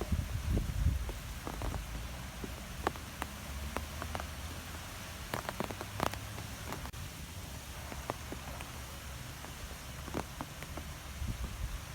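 Wind blowing through trees: a steady rushing hiss over a gusty low rumble that is strongest in the first second, with scattered light ticks and taps throughout.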